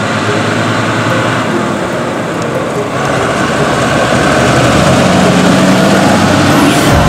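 Fendt tractor's diesel engine running steadily as it tows a grain trailer along the road, growing louder as it comes close and passes by.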